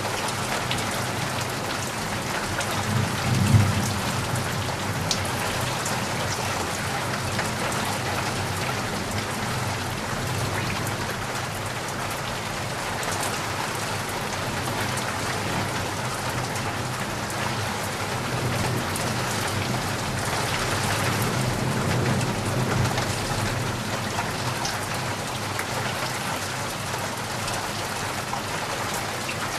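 Heavy rain falling steadily on surfaces, a dense even hiss of drops. A low rumble underlies it, swelling sharply about three and a half seconds in and again more gently about two-thirds of the way through.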